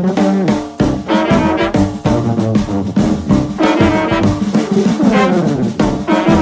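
Background music: jazzy tune led by brass instruments, with notes struck in a regular rhythm.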